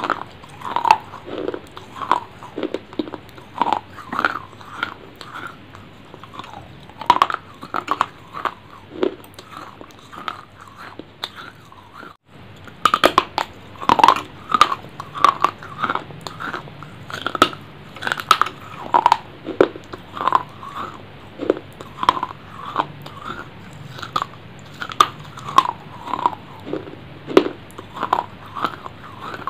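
Close-miked eating: biting and chewing food with crunchy, wet mouth clicks, about two a second.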